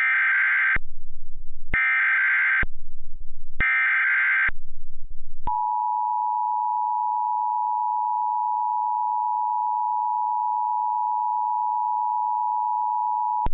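Emergency Alert System SAME header: three warbling digital data bursts of about a second each, with a low buzz between them. About five seconds in, the EAS two-tone attention signal follows, a steady dual tone held for about eight seconds, heralding a tornado warning.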